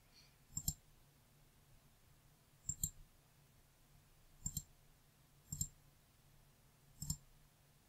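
Five computer mouse clicks, each a quick press-and-release double tick, spaced one to two seconds apart over a faint steady low hum.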